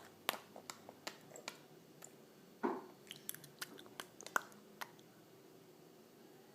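A baby's mouth noises: a run of sharp, wet lip-smacks and tongue clicks, with a short voiced grunt about two and a half seconds in, stopping about five seconds in.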